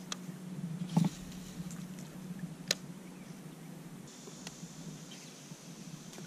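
A few faint clicks and ticks from a baitcasting rod and reel being handled, over a quiet background. A thin high hiss comes in about four seconds in.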